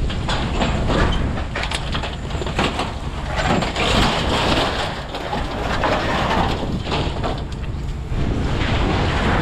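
Sheets of corrugated tin roofing crunching and scraping as they are pulled and bent off burned debris, over a steady low rumble.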